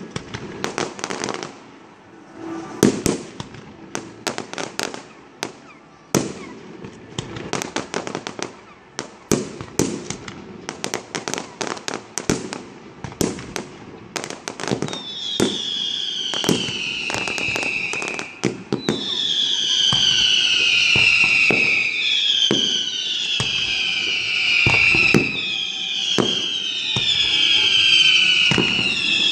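Fireworks display: a rapid run of sharp bangs and crackling bursts. From about halfway, whistling fireworks join in, a string of overlapping whistles each falling in pitch, over further bangs.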